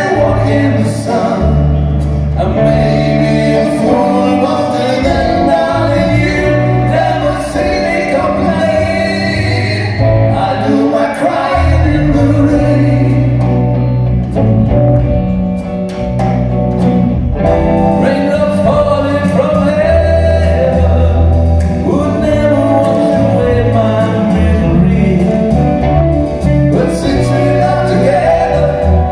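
A band playing live: two men singing together over electric guitar, low bass notes and drums.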